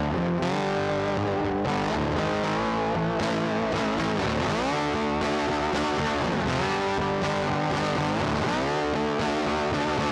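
Background music led by a distorted electric guitar, steady throughout, with notes that bend and slide in pitch several times.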